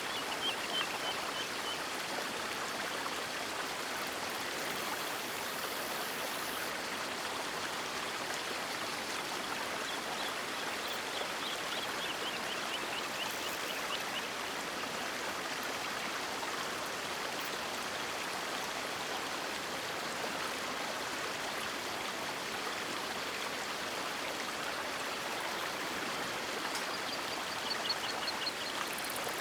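River water rushing steadily, an even continuous hiss. A few faint high-pitched chirping trills come through it near the start, around the middle and near the end.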